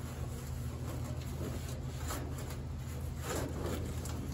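A cloth rag wiping rust remover off the bare steel underside of a 1960 Cadillac hood: a few soft rubbing strokes, the clearest about three seconds in, over a steady low hum.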